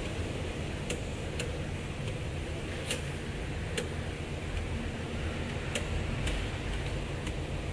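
About six light, irregular clicks and taps from hands and tools working at a Toyota Crown's throttle body and throttle position sensor, over a steady low hum.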